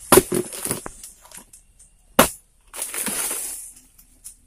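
An oil palm is being cut with a long-handled harvesting pole: the blade crackles and snaps through frond and bunch stalks. There is one sharp crack about two seconds in, then a rustling crackle of fronds.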